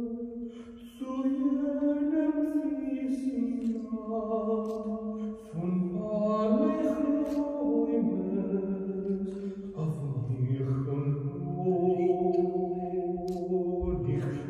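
Slow, chant-like vocal music: long held sung notes that shift to a new pitch every few seconds.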